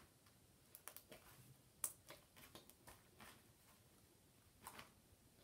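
Slime being handled by hand: a few faint, scattered clicks and pops, the sharpest about two seconds in, over near silence.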